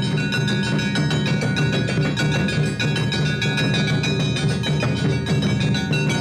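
Awa odori festival band (narimono) playing: rapid clanging kane hand gongs over taiko drums, dense and continuous.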